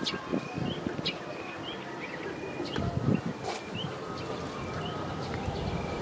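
Wind buffeting the microphone in uneven low gusts, strongest about three seconds in, with a bird repeating a short rising chirp about once a second.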